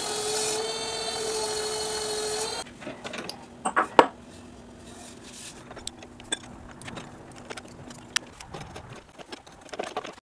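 Steel wool pressed against a black walnut bowl spinning on a lathe, a steady hiss with a held whine that stops suddenly after about two and a half seconds. Then a run of metal clicks and knocks, the loudest about four seconds in, as large flat bowl-jaw plates are fitted to the lathe chuck and tightened with a hex key.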